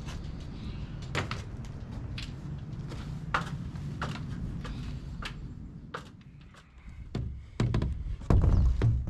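Scattered knocks and clunks of solar panels and a ladder being handled as a man climbs, over a low rumble. Near the end come several louder thumps as the panel and hands bump the polycarbonate greenhouse roof.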